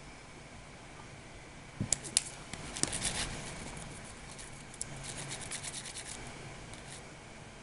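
A kitten's paws scratching and rustling against a sheet of paper and a satin bedspread: scattered soft scrapes and clicks, busiest about three seconds in and again between five and six seconds.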